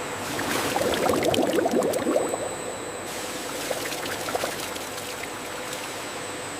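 Liquid pouring and splashing, loudest for the first couple of seconds, then settling into a steadier flow over a faint steady hum.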